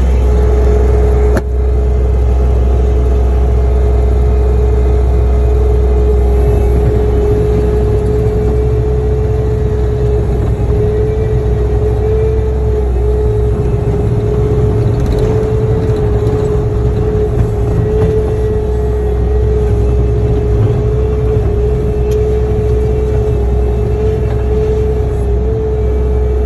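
Earthmoving loader's diesel engine and hydraulics running steadily, heard from inside the cab: a steady whine over a deep rumble. There is one sharp knock about a second and a half in.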